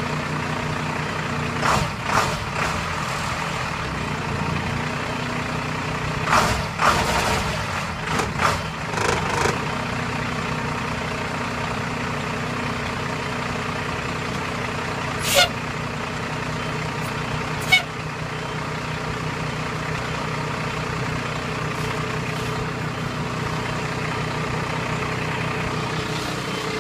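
Cummins 5.9 inline-six diesel in a school bus idling steadily, moments after a cold start. A few brief sharp hissing bursts stand out over the idle: a couple near the start, a cluster in the first third, and two single ones past the middle.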